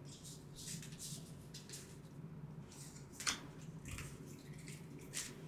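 Cards handled and sorted by hand: soft slides and rustles of card stock, with a sharper card snap about three seconds in and a smaller one near the end.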